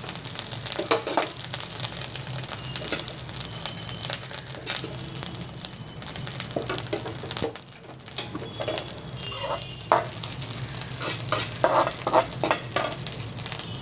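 Metal spatula scraping and knocking against a steel wok as fried rice is stirred and scooped out onto a plate, with the hot rice sizzling. The scrapes come irregularly and cluster into a quick run of knocks near the end as the wok is tipped and emptied.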